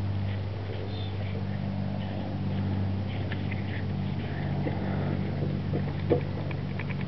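A vehicle engine running with a steady low drone, with a few small clicks about six seconds in.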